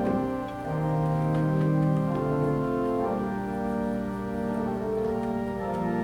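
Organ playing slow, held chords that change about every second or two.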